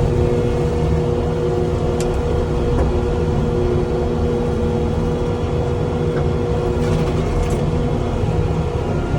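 Skid steer running steadily under load with its Terminator XP hydraulic brush-cutter attachment spinning: a constant engine drone with a steady hum over low rumble.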